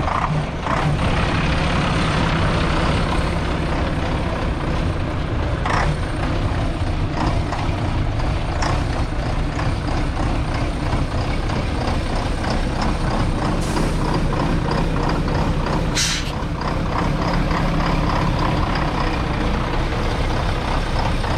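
1987 Volvo F12's 12-litre six-cylinder diesel idling steadily, with several short hisses of air, the loudest about three-quarters of the way through.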